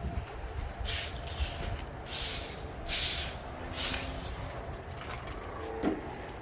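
Four short, rough scraping swishes about a second apart, from digging in garden soil to lift potatoes, over a steady low rumble.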